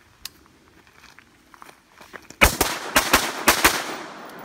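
Six shots from an AR-style rifle, fired in three quick pairs over about a second and a half starting halfway through: a zipper drill, two to the pelvis, two to the chest and two to the head. The shots echo off, preceded by a few faint clicks.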